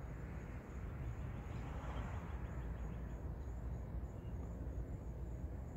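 Evening insects chirping in a steady, evenly spaced high-pitched pulse, over a continuous low rumble with a soft hiss that swells about two seconds in.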